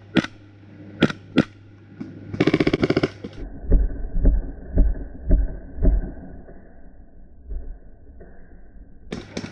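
Airsoft gas pistol firing: three sharp single shots in the first second and a half, then a rapid rattling run of shots about two and a half seconds in as the pistol runs out of gas, the last shot going only about three inches. After that the sound turns muffled, with low thumps.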